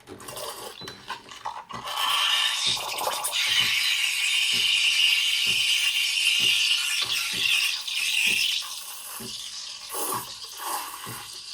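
Espresso machine's steam wand hissing as it froths milk for a cappuccino. The hiss comes in strongly about two seconds in and eases off about three seconds before the end, with a faint low pulsing about twice a second underneath.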